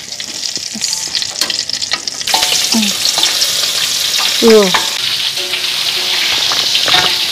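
Hot cooking oil sizzling in a frying pan, a dense steady crackle that grows louder about two seconds in.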